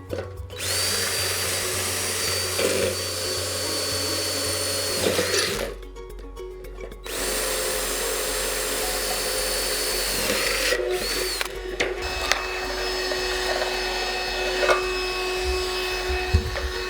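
Power drill running in two long runs of about five and four seconds, its motor whine steady and dipping as each run stops, boring or driving screws for the screen's side tracks. Afterwards come a few light clicks and knocks of handling.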